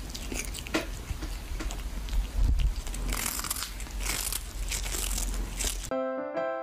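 A kitten gnawing on food held in its paws, close to the microphone: a quick, uneven run of crisp bites and crunches. About six seconds in the chewing cuts off and piano music starts.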